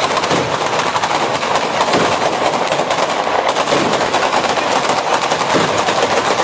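Batteria alla bolognese ground firework: a long chain of firecrackers going off in rapid, unbroken succession, a dense rattle of bangs at a steady loudness.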